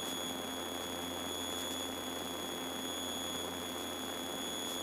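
Steady cockpit noise of a Piper Seminole twin in cruise, heard through the intercom audio: an even hiss with a faint engine drone and a constant high-pitched whine.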